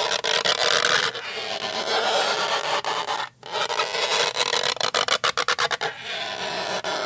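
Rubber rubbed hard against a surface, squeaking and chattering in long strokes, with a short break about three seconds in and a quick run of stuttering clicks around five seconds.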